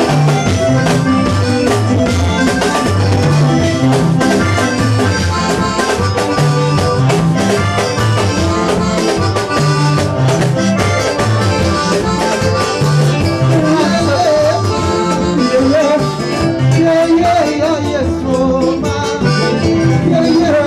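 Live Congolese gospel band playing a dance number: drum kit, electric guitars and a repeating bass line.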